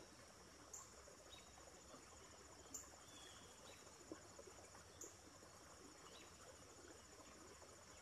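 Faint, steady chirring of insects, a high, rapidly pulsing trill that never lets up, with a few soft clicks about every two seconds.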